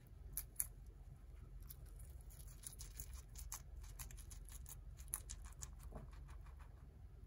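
Guinea pig chewing crisp romaine lettuce: a run of short, crisp crunching clicks, with two sharper ones about half a second in and then a quick, steady crunching.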